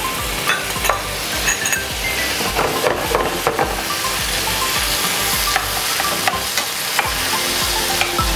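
Oysters and an egg-and-starch omelette sizzling in a hot non-stick frying pan, with the clicks and scrapes of a utensil stirring and turning them.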